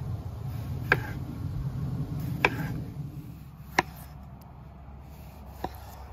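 Chef's knife slicing a tomato into rounds, its blade knocking sharply on a wooden cutting board four times, about every one and a half seconds.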